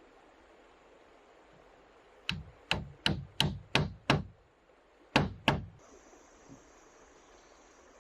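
Hammer-like blows on timber: six sharp knocks at about three a second, then a short pause and two more.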